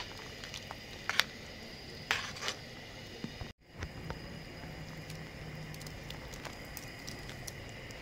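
Chicken soup simmering in a stainless steel pot: a steady bubbling hiss with scattered small pops and crackles. A few louder scrapes and knocks come about one and two seconds in, and the sound cuts out for a moment about three and a half seconds in.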